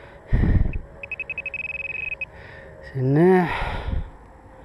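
Metal-detecting pinpointer probe giving rapid high beeps that run together into a steady tone, a sign it has closed on a metal target in the hole. Before it there is a dull thud, and about three seconds in a short hummed grunt from a person.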